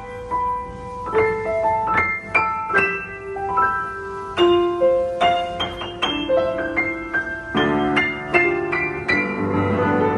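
A 1991 Yamaha U30 upright piano, 131 cm tall, played in a sound check: a melody of single struck notes, filling out into fuller chords with low bass notes over the last few seconds. The piano has just had its action regulated and its hammers filed and voiced.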